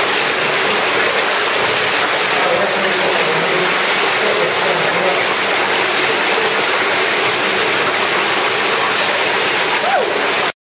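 Cave stream water rushing over rock: a steady, loud hiss of running water that cuts off suddenly near the end.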